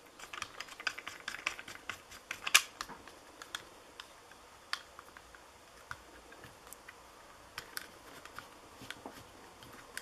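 Plastic clicks and taps of a J-hook buckle mount, its long thumbscrew and a clear action-camera housing being handled and fitted together by hand: scattered, irregular clicks, the sharpest about two and a half seconds in.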